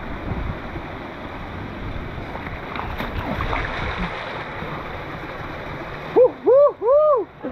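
Steady rush of river water pouring over a waterfall. Near the end, a person's voice gives three short, high rising-and-falling cries.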